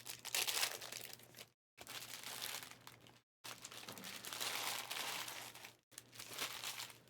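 Plastic trading card pack wrappers crinkling and tearing in several separate bursts of about one to two seconds each, as packs are opened by hand.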